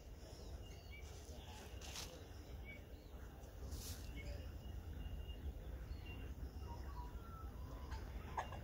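Quiet outdoor ambience: a steady low wind rumble on the microphone, with faint, scattered bird chirps and a few small clicks, the sharpest click near the end.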